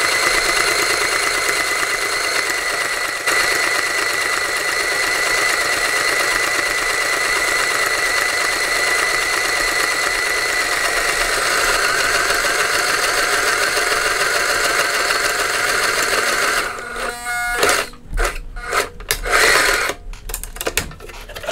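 Portable sewing machine running steadily with a constant whine, stitching a long seam, and stopping about three-quarters of the way in. After it stops come a few short clicks and knocks of handling.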